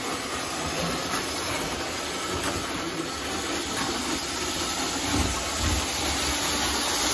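Postwar Lionel O-gauge tinplate trains running on three-rail track: a steady hiss with the rumble of wheels and motors, the rumble swelling about five seconds in.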